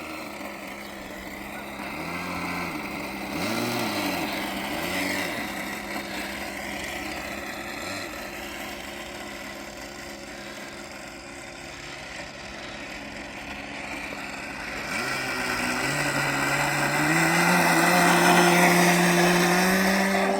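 Radio-controlled model airplane's motor and propeller running, with its pitch swinging up and down a few times early on as the throttle is worked. Later the pitch steps up and the sound grows louder as the throttle is opened up.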